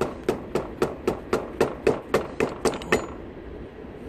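Rubber mallet striking a rubber handlebar grip to drive it further onto a scooter's handlebar, with the grip slicked with hairspray. About a dozen quick strikes, roughly four a second, stop about three seconds in.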